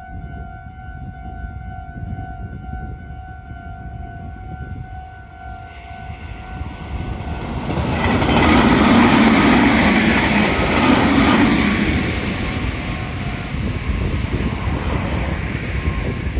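Japanese railroad crossing's warning bell ringing steadily, drowned out after about seven seconds by a Meitetsu electric train passing over the crossing. The train noise is loudest about eight to twelve seconds in and goes on to the end.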